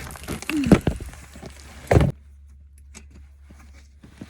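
Scraping and knocking of hands working a diesel heater fuel pump and its fittings loose under a van, busy at first, with one sharp loud knock about two seconds in, then only faint clicks.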